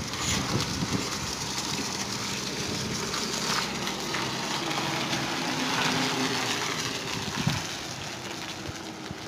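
Tractor engine running as it manoeuvres a loaded grain trailer into position to reverse and tip, under a steady noisy hiss.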